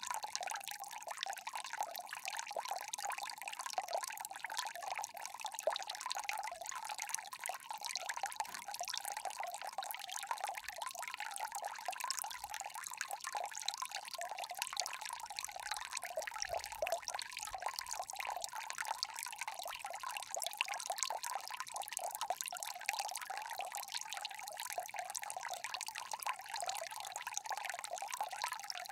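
Small indoor tabletop water fountain, water trickling and splashing steadily without a break.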